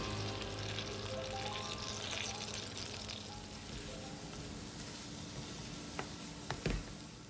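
Button mushrooms sizzling in butter in a skillet, with background music over them; the sound slowly fades out, with a couple of light clicks near the end.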